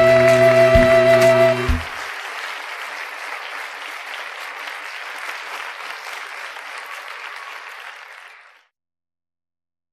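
Audience clapping, under a piece of music that ends on a held final chord just under two seconds in. The clapping carries on alone, fades, and cuts off to silence shortly before the end.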